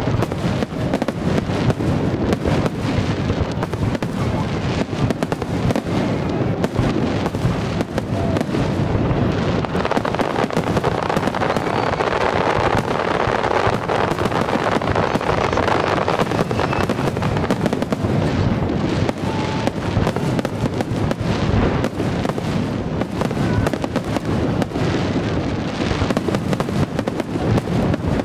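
Aerial firework shells bursting in a rapid, continuous barrage, the bangs coming so close together that they run into one another without a pause.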